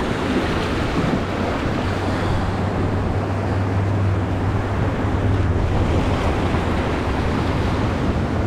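Steady rush of river water around a paddled raft, mixed with wind buffeting the microphone.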